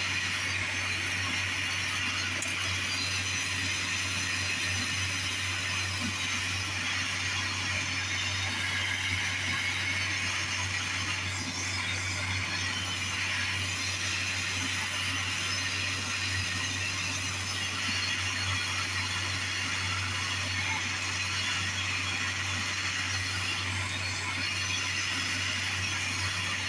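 Jeweller's torch flame hissing steadily while heating sterling silver to flow solder, with a steady low hum underneath.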